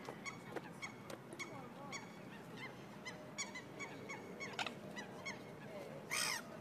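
Waterfowl calling in short repeated notes, about three a second, with a brief louder burst of noise near the end.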